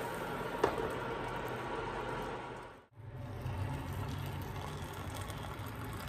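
Water bubbling in a stainless steel saucepan on an induction hob, with one sharp click a little over half a second in. After a sudden break, boiled water is poured from the saucepan into a glass mug.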